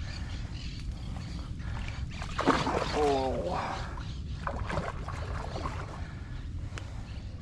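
Steady low rumble of wind on the microphone. About three seconds in there is a short, loud, voice-like sound that bends in pitch.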